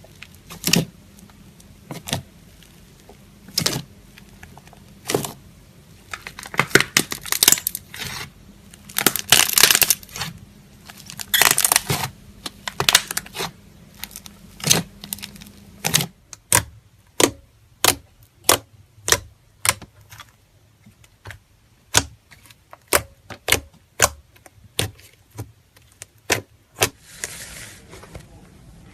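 Slime being pressed and poked, making sharp, wet pops of trapped air at intervals, with crackly stretches in between. After about 16 s the pops come steadily, roughly one and a half a second, and a short hiss follows near the end.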